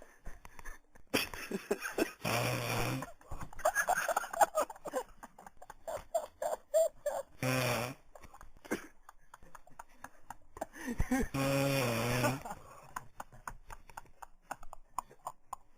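A sleeping man snoring: three loud snores about four to five seconds apart, the second one short, each with a low buzzing drone. Faint scattered clicks come in between.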